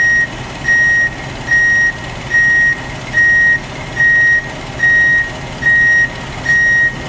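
Vehicle backup alarm beeping: a single high tone repeated evenly, about eight beeps roughly one every 0.8 seconds, over a steady low engine drone.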